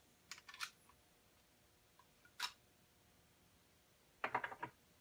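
Light clicks of brass rifle cases being handled in a Lee Auto-Prime hand priming tool and a plastic loading tray. There are a few quick clicks, a single click about two and a half seconds in, and a short rattle of clicks near the end.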